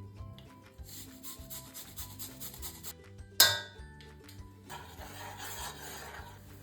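Raw root being grated by hand: quick rasping strokes, several a second, a single sharp clink about halfway through, then more rasping.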